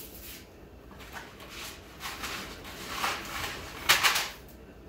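Dry spaghetti being broken and handled over a pan: rustling and crackling, then a few sharp, loud snaps near the end.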